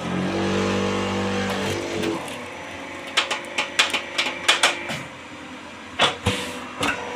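JKTM concrete block-making machine at work: a steady motor hum for about the first two seconds, then a quick run of sharp metal clanks about three to five seconds in, and two louder knocks near the end.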